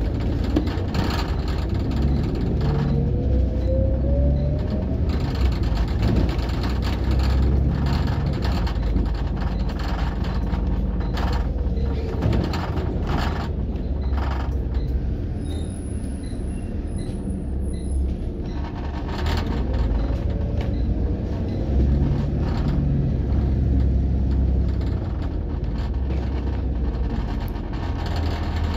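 Service bus heard from on board while in motion: steady engine and road rumble with frequent rattles and creaks from the body. A whine rises in pitch about three seconds in as it picks up speed, and the rumble drops quieter for a few seconds midway before building again.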